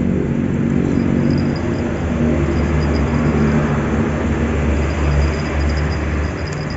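Steady low rumble of a motor engine running with a constant hum. A faint high-pitched tone comes and goes over it.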